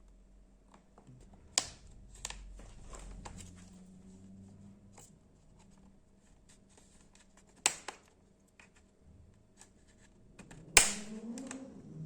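Bottom cover of an ASUS Zenbook UX425 laptop being pried off, its retaining clips snapping loose one by one. There are small ticks and scrapes, a few sharp snaps, and the loudest snap near the end.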